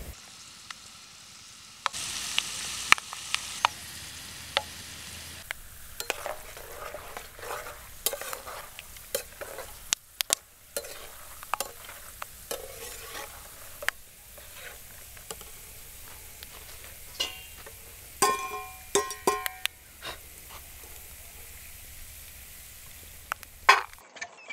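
Peanuts frying in hot oil in a metal pan, sizzling, while a steel spatula stirs them and scrapes and clicks against the pan. A quick run of ringing metal clinks comes about three quarters of the way through.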